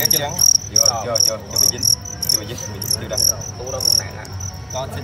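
Male fighting cricket chirping: a rapid series of short, high-pitched chirps, about four to five a second.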